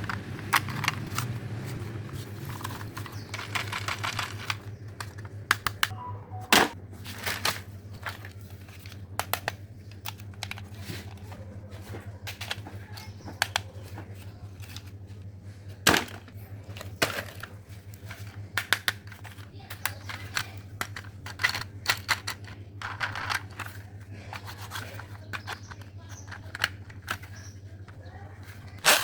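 Old plastic toys being handled and rummaged through: irregular clicks, light knocks and crinkling rustles, with a few sharper knocks, over a steady low hum.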